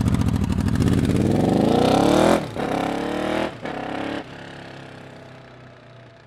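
Honda VFR800 V4 motorcycle engine revving hard as the bike pulls away, its pitch climbing through first gear, then dropping at two quick upshifts and climbing again. It fades steadily as the bike rides off into the distance.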